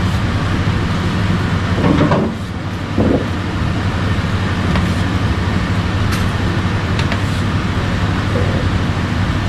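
A steady low mechanical hum, with a couple of short knocks about two and three seconds in.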